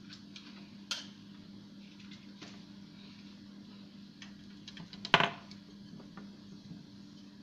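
Small hard objects being handled, giving light clicks and one louder clack about five seconds in, over a steady low hum.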